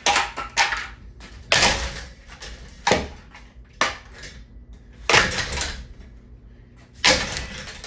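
Ceiling fan being smashed: about seven hard blows at irregular intervals, roughly one a second, each a crash with a short metallic clatter. Some of the clatters run on longer than others.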